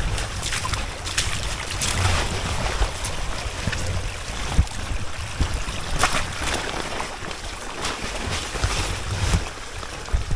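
Wind buffeting the microphone over a steady wash of rain and running water, with scattered sharp splashes or footfalls.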